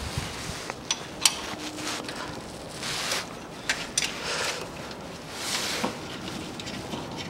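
A 16 mm wrench undoing the nut of a timing-belt tensioner roller: a few sharp metallic clicks and knocks, the loudest a little over a second in, with brief rustling of hands and sleeves in between.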